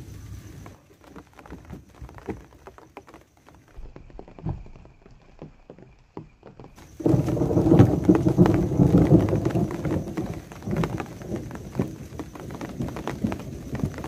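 Rain pattering and dripping close by in a thunderstorm, many small ticks and taps; about seven seconds in it turns suddenly much louder and denser.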